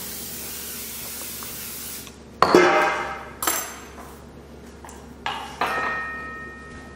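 Dishes being washed: water running from the tap, then dishes clattering together, about four knocks, the last ones leaving a ringing tone like struck crockery or metal.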